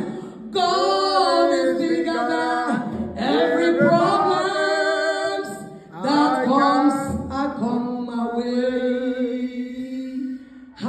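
A woman singing a worship song unaccompanied into a microphone, in a few long phrases with held notes and short breaks between them.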